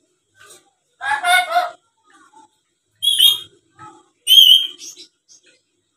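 Black-capped lory calling: a voice-like squawk about a second in, then two high-pitched calls around three seconds and four and a half seconds in.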